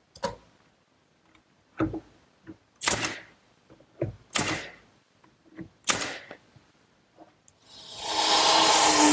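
Pneumatic brad nailer firing about five times, each shot a sharp clack with a short hiss of exhaust air, as it nails a pine rail to the cabinet. Near the end comes a louder rushing, whirring noise lasting about a second and a half.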